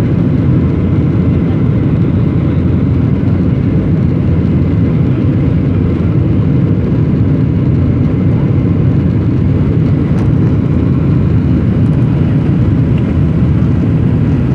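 Boeing 737-800 climbing after takeoff, heard from inside the cabin: a steady, even noise of its turbofan engines and the air rushing past the fuselage, heaviest in the low end, with no change in pitch or level.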